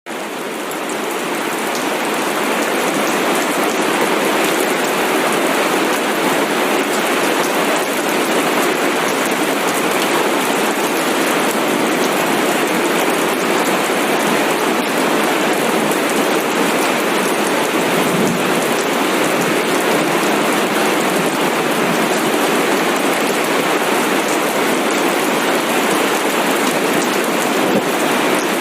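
Steady, heavy rain falling, a dense even hiss that fades in over the first couple of seconds and then holds.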